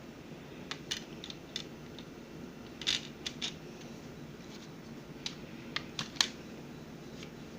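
Scattered plastic clicks and taps of a CD case being handled and opened, about a dozen, the loudest about three and six seconds in, over a steady low hum.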